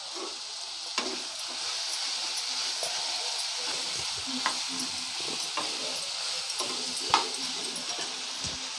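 Quail pieces sautéing in oily masala in a nonstick kadai, sizzling steadily, while a steel slotted spatula stirs them and scrapes and taps against the pan now and then, the sharpest tap about seven seconds in.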